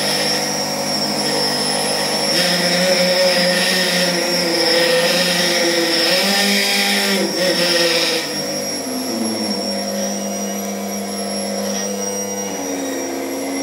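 Immersion blender's motor running, powered through a microwave oven transformer, with a steady high whine over its motor sound. Its pitch wavers, then sags about eight to nine seconds in as it gets a little quieter.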